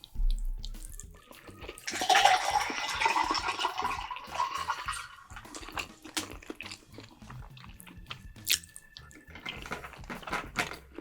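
Close-miked eating sounds: a knock just after the start, then a long wet slurp for about three seconds, followed by chewing and scattered mouth clicks.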